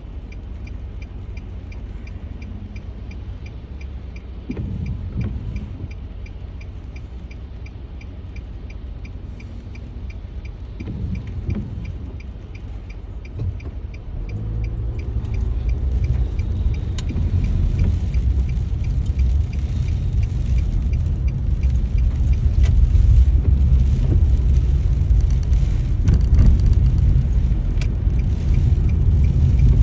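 Inside a car: a turn signal clicks steadily at about two ticks a second over a low engine rumble. About halfway through the clicking stops and the car pulls away, and the engine and tyre noise on the wet road grow louder.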